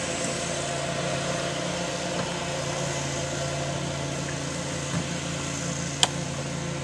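A steady low mechanical hum, with a single sharp click about six seconds in.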